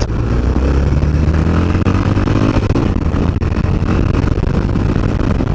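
Aprilia Pegaso 650's single-cylinder engine pulling hard under acceleration, its note rising as the bike gets up to about 70 mph. Heavy wind noise on the helmet-mounted microphone.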